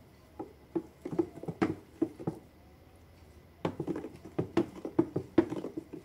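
Wooden spoon stirring a foamy liquid-soap mixture in a plastic bucket, knocking against the bucket's sides in quick, irregular strokes, with a pause of about a second in the middle.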